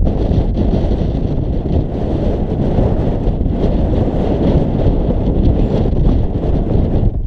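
Strong wind buffeting the camera's microphone: a loud, steady, low rumble.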